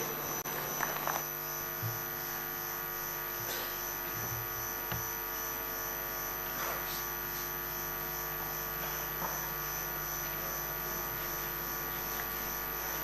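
Steady electrical hum made of several fixed tones, with a few faint clicks.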